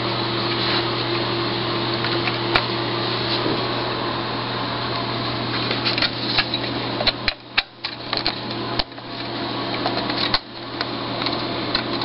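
Steady mechanical whirring with a constant low hum, broken by a few clicks and light knocks from handling the monitor's sheet-metal frame, most of them between about seven and eight seconds in.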